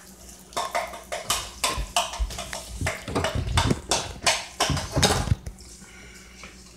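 A cooking utensil knocking and scraping against a deep skillet as fideo noodles are stirred, giving an irregular run of sharp clacks, two or three a second, that stops about a second before the end.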